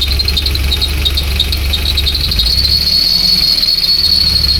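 Mercedes-Benz M102 four-cylinder engine running with a high-pitched whistle from the engine bay. The whistle chirps in quick pulses, then about halfway through settles into a steady tone. It persists despite a new drive belt and a new idler pulley, and its cause is not yet found.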